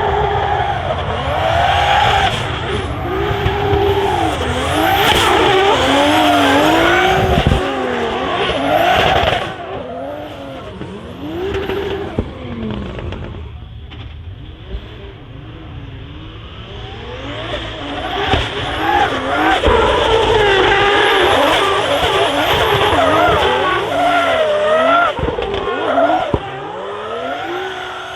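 Toyota Supra drift car's 2JZ-GTE engine with anti-lag revving hard, its pitch swinging up and down over and over, with tyres squealing. Loud for the first nine seconds or so, it falls back for several seconds, then comes up loud again.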